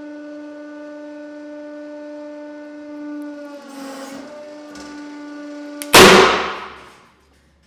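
A 150-ton hydraulic press's pump and motor running with a steady droning hum that sags briefly in pitch as it works against the load. About six seconds in, a single loud sharp bang rings off over about a second as a roll of monofilament fishing line bursts under the press near full force.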